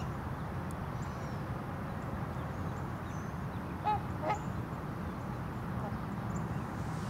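A swan gives two short honking calls in quick succession about four seconds in, over a steady low background rumble.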